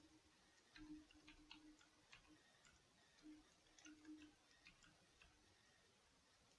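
Faint computer keyboard typing: irregular key clicks at an uneven pace.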